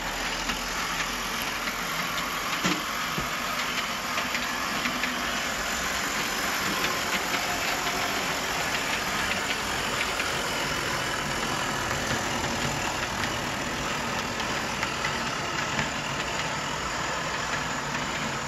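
Scratch-built O scale Burlington T2 Mallet model steam locomotive running along the track with its cars: a steady mechanical whir with faint light ticks of metal wheels on the rails.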